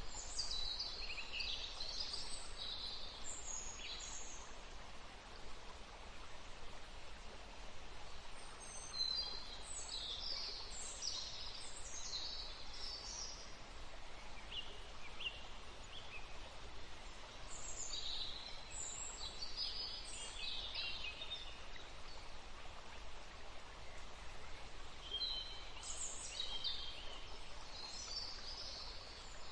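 A songbird singing repeated bouts of high, quick chirping phrases, each a few seconds long and coming back about every eight seconds, over a steady faint low rumble.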